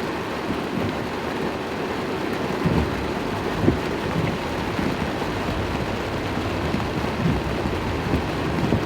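Heavy rain on a moving car: a steady rain hiss with a low rumble underneath. A few brief low thumps come through, the loudest a little under four seconds in.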